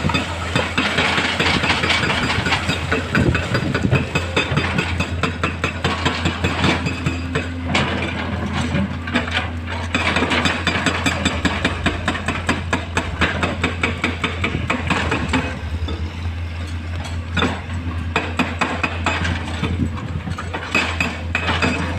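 Diesel engines of heavy earthmoving machinery, a dump truck and excavators, running steadily with a low hum and a fast, continuous clatter.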